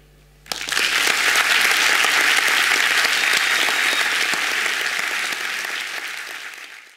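Audience applauding, starting about half a second in and fading out near the end.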